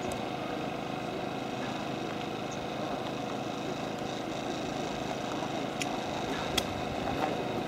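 Steady rush of clear water running in shallow channels over gravel beds, with a couple of sharp clicks late on.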